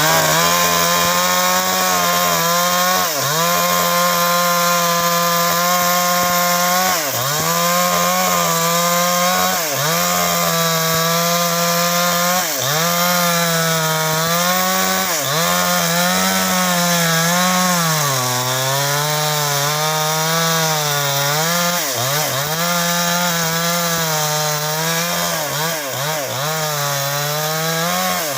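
Chainsaw running at full throttle while cutting into a mahogany trunk. Its pitch dips briefly every few seconds as the chain bites, and it bogs lower under heavier load for a few seconds past the middle.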